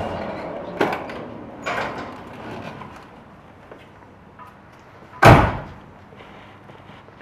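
A car door slammed shut once, sharply, about five seconds in: the steel door of a 1966 Pontiac GTO. Two lighter knocks come earlier, at about one and two seconds.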